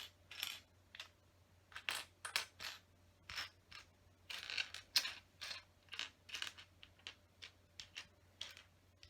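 Loose plastic Lego pieces clicking and rattling against each other as a hand rummages through a pile, searching for a particular brick: a string of short, irregular clicks, a few a second.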